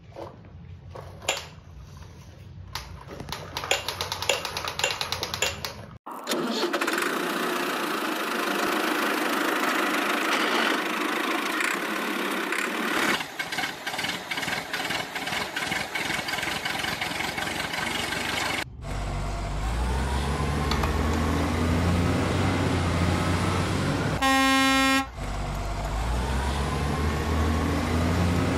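Plastic toy vehicles clicking and rattling on a tiled floor, then a truck engine sound running with a single horn honk lasting under a second near the end. The engine and horn are sound effects laid over the toys.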